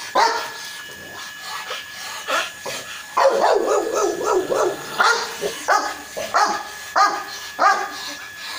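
A rottweiler and a French Mastiff (Dogue de Bordeaux) barking repeatedly. A denser run of barks comes about three to four seconds in, followed by single barks less than a second apart.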